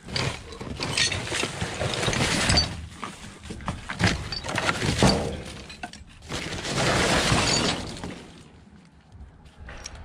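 Debris in a skip being dug through and shifted: a long run of clattering, crunching and clinking of broken material, in two bouts, the second stopping about eight seconds in.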